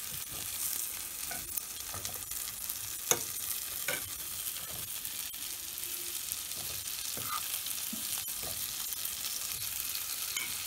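Butter sizzling in a pot as hollowed zucchini halves fry lightly, with scattered clicks and taps of a utensil turning them; one sharper click about three seconds in.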